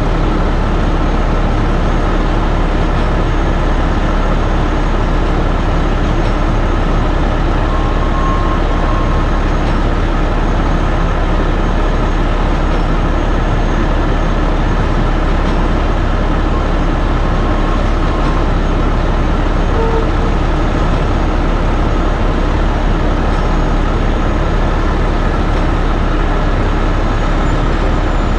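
Diesel engine of a 75-ton heavy rotator tow truck running steadily close to the microphone, with a low, even drone that does not change.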